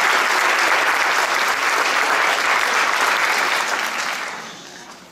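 Audience applauding, many hands clapping together, then dying away about four seconds in.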